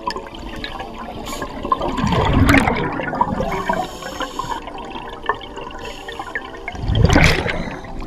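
Scuba regulator exhaust bubbles gurgling underwater, heard through the camera's housing, with two louder bursts of exhaled bubbles about two seconds in and again about seven seconds in.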